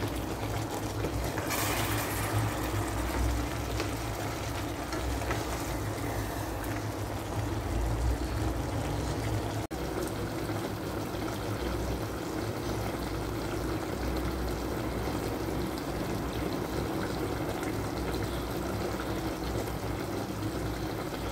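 Eggplant and chicken liver simmering in sauce in a rice cooker pot, the liquid bubbling steadily. A wooden spatula stirs it near the start, and the sound cuts out for an instant about halfway.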